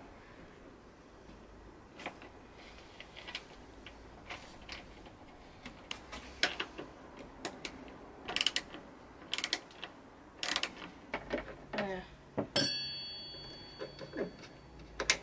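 Scattered metal clicks, knocks and creaks of a gas boot strut's end fitting and the Nissan 100NX tailgate hardware as the strut is offered up to the ball joint, which is not lining up. A sharp metallic clink about twelve seconds in rings briefly.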